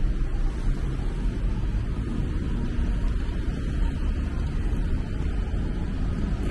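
Steady low rumble of traffic and wind noise, with no distinct events.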